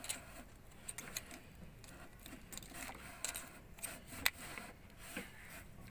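Scattered light metallic clicks and taps of hand tools being handled on the engine, the sharpest a single click about four seconds in; no cranking or running engine.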